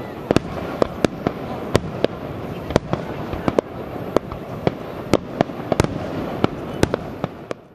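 Aerial firework shells bursting in quick succession: sharp bangs about three times a second, irregularly spaced, over a continuous din from the display.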